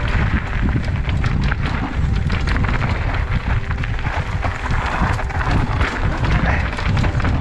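Mountain bike running down a rough, rocky downhill trail: steady wind rush on the microphone and low rumble, with frequent sharp rattling knocks as the bike crosses rocks.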